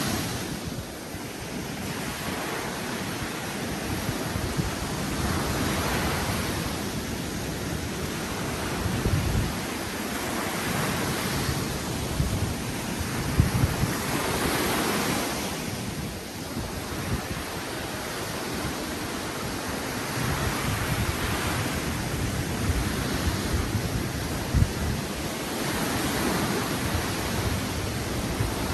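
Sea surf: waves breaking on the shore about every four to five seconds, with wind buffeting the microphone.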